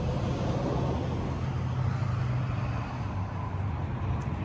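A vehicle engine idling steadily: a low, even hum.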